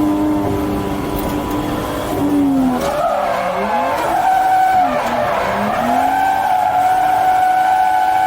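Toyota Chaser JZX100's 1JZ straight-six engine running hard while drifting, its pitch falling and climbing twice between about two and six seconds in, then held high and steady, with tyres skidding.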